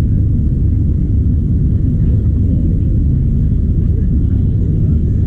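A steady low rumble with an even level throughout.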